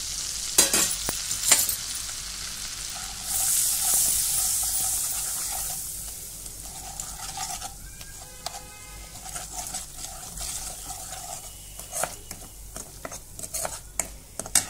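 Ground spices frying in hot ghee and butter in a kadhai, sizzling while a steel spoon stirs them and clinks against the pan. The sizzle swells loudest about four seconds in, then settles as the masala turns to a paste.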